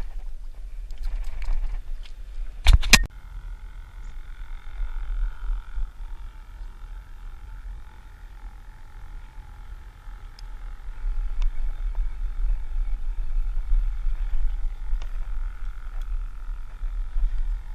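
Wind rumbling on the microphone out on the water, with a sharp double knock a little under three seconds in, followed by a faint steady whine that holds to the end.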